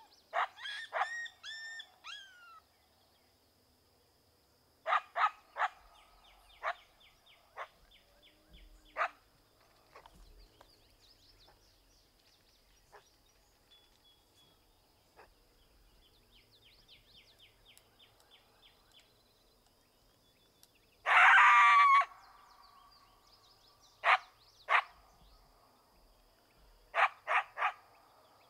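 Coyote barks and yips in short groups of one to four sharp calls, some falling in pitch, with one louder, longer bark-howl about three-quarters of the way through.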